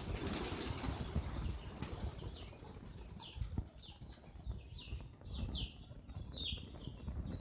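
A flock of pigeons flapping their wings, a loud rush of wingbeats in the first second or so, followed by a series of short, high, falling chirps.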